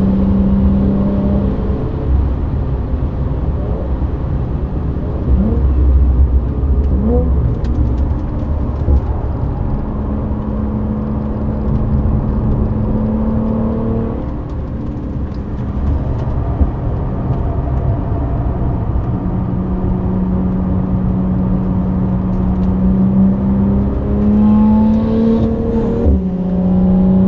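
Audi B8 S4's supercharged 3.0-litre V6 with a Milltek non-resonated exhaust, heard inside the cabin while the car is driven hard on a race track. It holds steady pitches between changes in revs, with a climb and a sudden drop near the end, over constant tyre and road rumble.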